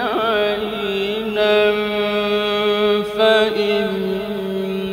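A male Quran reciter's voice in melodic mujawwad recitation, drawing out long held, ornamented notes, with a wavering turn at the start and a few small shifts in pitch.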